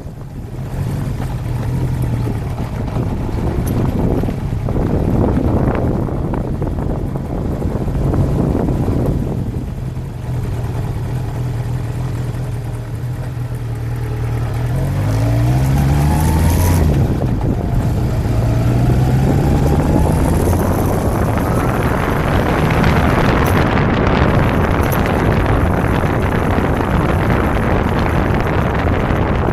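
1992 Kawasaki Zephyr 550's air-cooled inline-four engine running under way, with wind rushing over the microphone. The engine note rises and falls in pitch about halfway through, then climbs again as the wind noise grows louder over the last third.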